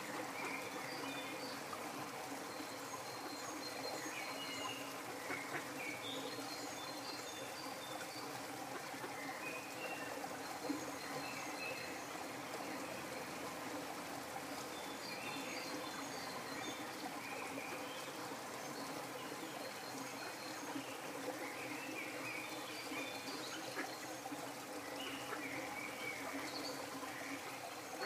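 Steady rush of running water, with short, high bird chirps scattered over it.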